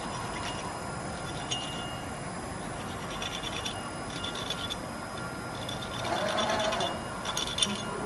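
Gantry CNC drilling-milling machine cutting a steel workpiece: a steady machine hum with a faint steady whine and uneven scraping from the tool in the metal. The cutting gets louder about six seconds in, with a sharp clink near the end.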